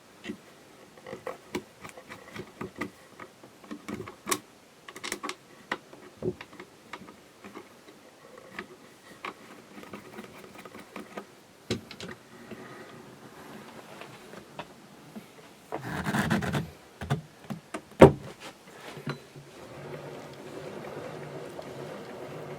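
Scattered small clicks and knocks of objects being handled, with a brief rustling burst around sixteen seconds in and a sharp knock about two seconds later, the loudest sound. A steady low hum starts near the end.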